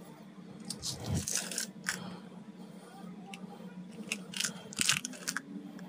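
Handling noises: scattered sharp clicks and rustles in two short clusters over a steady low hum.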